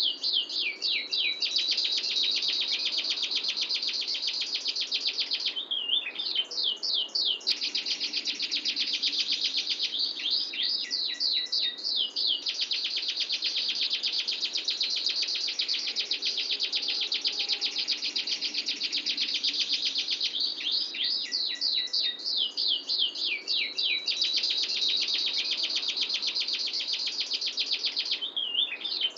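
Domestic canary singing a long rolling song of tight, clear rolls: very rapid trills held for several seconds at a time, broken every few seconds by runs of quick sweeping notes.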